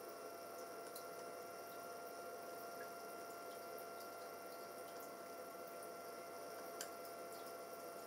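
A few soft clicks of the controller's push buttons being pressed, the clearest near the end, over a faint steady hiss and hum.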